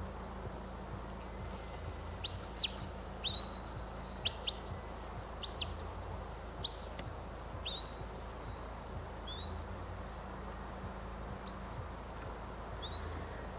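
Shepherd's whistle commands to a working sheepdog: a run of short, sharp high whistle notes, some rising and falling, some held briefly before dropping. About six come quickly together in the first half, then a few more spaced out towards the end.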